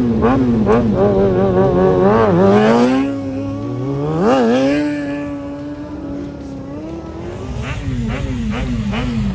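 Stunt motorcycle engine revving in quick throttle blips, about three a second. The revs climb and are held fairly steady through the middle with a brief surge about four seconds in, then go back to quick blips near the end.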